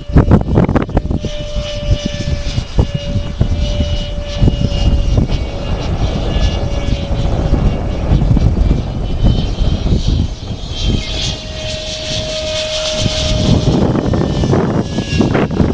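Electric ducted fan of an RC F9F Panther jet whining in flight, a thin steady tone that fades in and out and is strongest about two-thirds of the way through. Heavy gusty wind buffets the microphone with a loud, uneven rumble.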